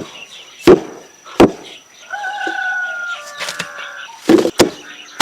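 A rooster crowing once, a call of about two seconds in the middle, between sharp chopping strikes: two single chops early on and a quick pair near the end.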